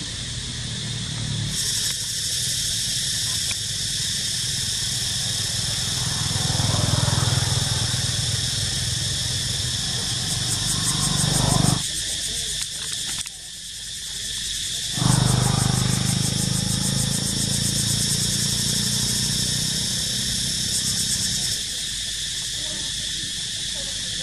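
Steady, high-pitched droning of insects, with a fine, fast flutter in its highest part, which drops out for a couple of seconds midway and again near the end. A low rumble swells and fades beneath it.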